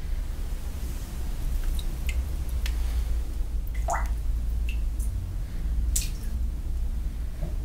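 Water dripping and small wet splashes as a toothbrush is pulled out of a clogged washbasin full of murky standing water, with a short rising plink about four seconds in, over a steady low hum.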